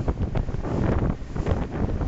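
Wind buffeting the microphone in uneven gusts, out on open water in a small open boat.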